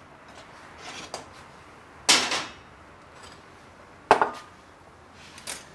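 Kitchenware being handled on a wooden cutting board: a few separate knocks and clatters. The sharpest is a knock with a short ring about four seconds in, as a small bowl is set down on the board.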